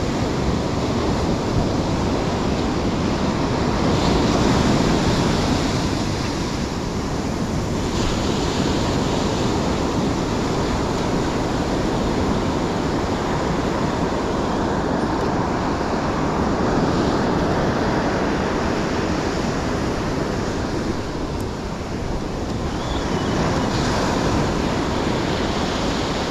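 Ocean surf breaking and washing up a sandy beach, a steady rushing that swells and eases every several seconds as waves come in, with wind buffeting the microphone.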